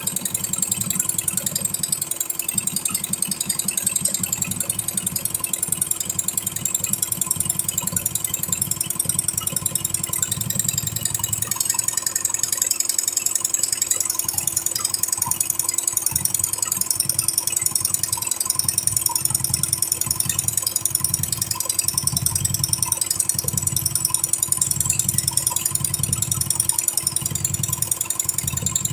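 Single-head, eight-needle computerized embroidery machine running and stitching, a fast, even mechanical chatter of the needle bar.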